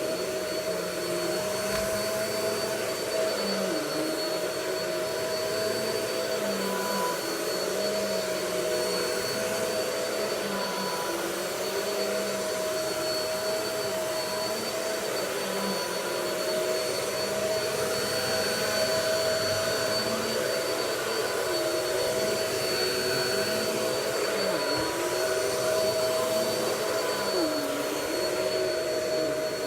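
Vacuum cleaner running steadily, a continuous rushing noise with a high whine, its lower hum wavering now and then.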